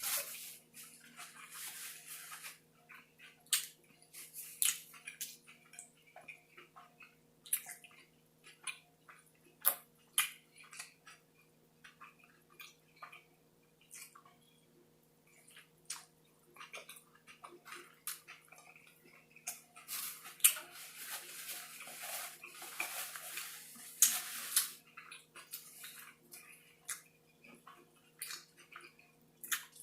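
Close-miked chewing and lip-smacking of someone eating a burger, many short wet clicks and smacks, with two longer stretches of rustling near the start and about two-thirds of the way in. A faint steady hum runs underneath.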